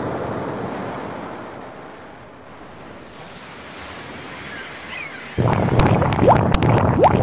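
Storm-at-sea sound effect: wind and waves that die down, then surge suddenly louder about five seconds in, with clicks and short rising squeaks in the louder part.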